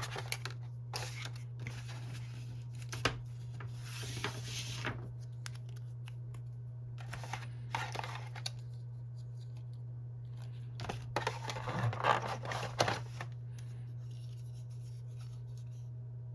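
Unboxing handling sounds: the phone box, packaging and accessories being rustled, slid and set down, in scattered groups of scrapes and clicks that stop about three seconds before the end. A steady low electrical hum sits underneath throughout.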